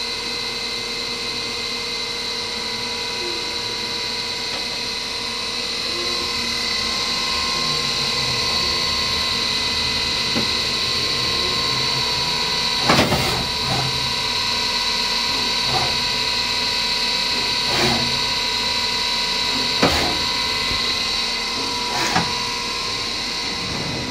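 DMC 103V CNC vertical milling machine running an automatic cycle, with its axes moving and the spindle turning. A steady high-pitched whine runs throughout, under lower motor tones that rise and fall as the axes travel. In the second half there are sharp clunks about every two seconds.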